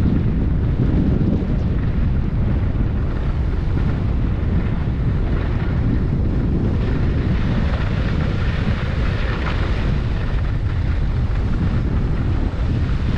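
Wind blowing across the microphone: a steady, loud, low noise with no pitch to it.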